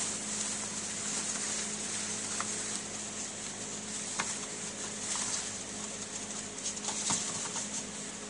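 Bedlington terrier puppies' claws pattering, with a few light scattered clicks, over a steady low hum and hiss.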